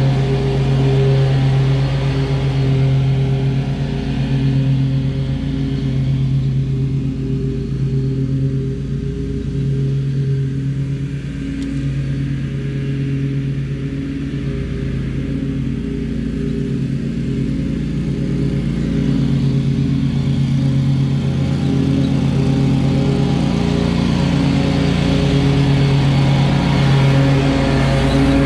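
Exmark stand-on mower's engine running steadily with the blades engaged, cutting grass. It fades as the mower moves away and grows louder again as it comes back close near the end.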